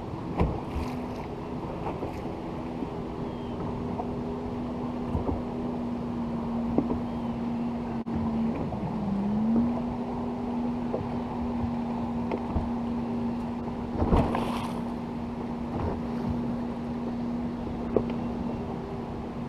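A boat motor humming at a steady pitch, with a brief dip in pitch about nine seconds in, over wind and water noise. A few light knocks, the loudest about fourteen seconds in.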